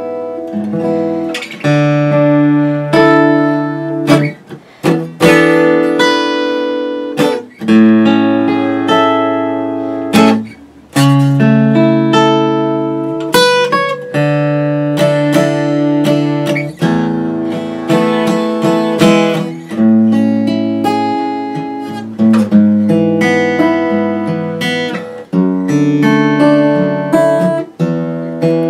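Martin D-41 dreadnought acoustic guitar, freshly restored with a neck reset, refret and re-glued bridge, being played: chords and deep bass notes struck about every second and left to ring.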